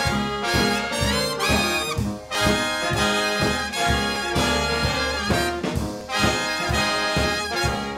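Live swing big band playing an instrumental passage: trumpets and trombones with saxophones over a steady swing beat from the rhythm section.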